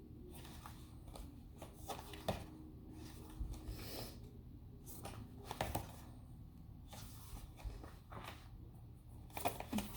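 Faint paper rustles and soft taps of an album photobook being handled and its pages turned, a few scattered handling noises a second or two apart.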